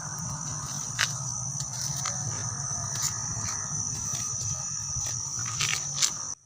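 Night insects such as crickets trilling steadily in a high, even band over a low hum, with a handful of sharp clicks scattered through it. The sound cuts off abruptly near the end.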